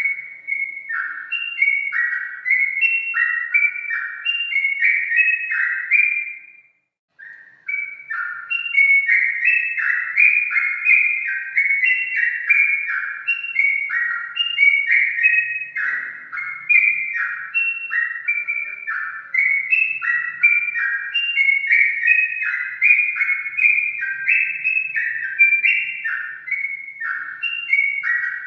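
Sooty-headed bulbul (trucukan) singing: a continuous run of short whistled notes that step downward, a few a second, with a brief pause about seven seconds in.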